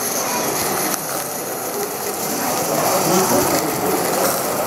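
Live-steam model Shay geared locomotive running along the track, its vertical-cylinder engine, line shaft and bevel gears making a rapid, continuous mechanical clatter.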